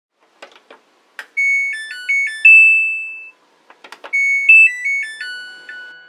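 Washing machine control panel: a few sharp clicks from the program dial or buttons, then a short electronic beep melody ending on a held note. After a few more clicks the melody plays again, and near the end the beeps settle into a repeating pattern.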